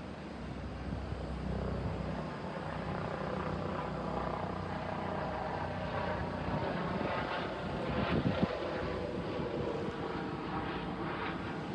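A vehicle running: a steady mechanical rumble with a faint humming tone, a little louder about eight seconds in.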